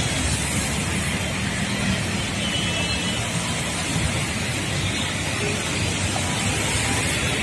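Traffic driving through a flooded road: a steady mix of vehicle engines with the wash of tyres pushing through standing water.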